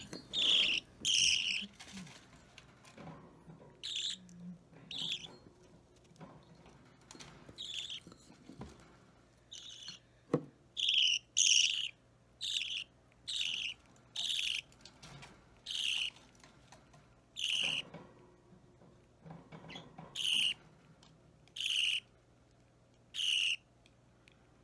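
Budgerigar chick giving short, rough begging chirps, repeated over and over at an uneven pace while being hand-fed.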